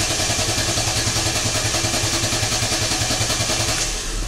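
Car starter cranking the engine of an LPG-equipped VAZ in a quick, even rhythm for nearly four seconds. Near the end the sound drops to a lower, steady engine hum as it catches: a long crank, the hard start that the owner puts down to a leaking LPG reducer diaphragm or to poor wiring contacts.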